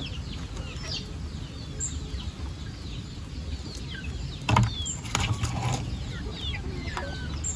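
Country chickens clucking, with many short high chirps scattered throughout and one louder sound about four and a half seconds in.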